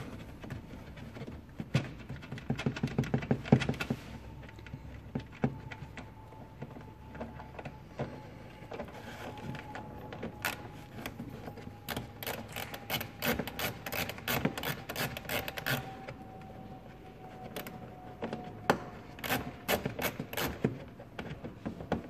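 Ratchet wrench clicking in quick runs as the taillight mounting nuts are loosened from inside the trunk, with scattered clicks of hands handling plastic trim and parts. A faint steady whine sits underneath for much of the time.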